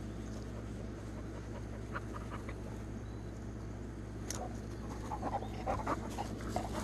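Dog panting in short, quick breaths close to the microphone, starting about four seconds in, over a steady low background hum.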